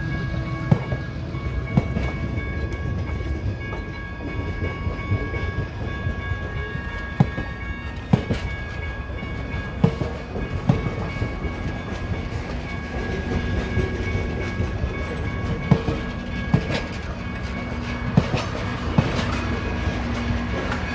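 Passenger cars of an excursion train rolling past over a steady low rumble. Their wheels give sharp clicks over the rail joints, often in pairs about a second apart.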